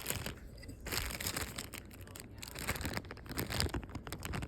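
Slime being squeezed and pulled by hand, giving a dense run of crackling, squelching snaps.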